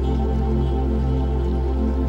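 Relaxing new-age background music: a steady low drone with slowly changing sustained notes above it.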